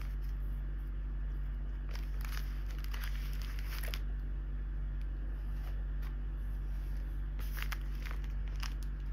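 Rustling and crinkling of a fabric dust bag and tissue paper as a small bag is slid out and unwrapped by hand, in two spells of handling: about two seconds in and again near the end. A steady low hum lies underneath.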